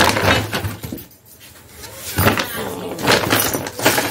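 Thin plastic carry bag rustling and crinkling as a hand rummages through the vegetables inside it, with a short lull about a second in.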